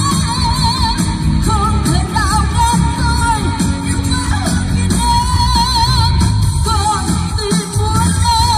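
A woman singing a Vietnamese pop song live through a handheld microphone over a full pop accompaniment, holding several long notes with a wide vibrato.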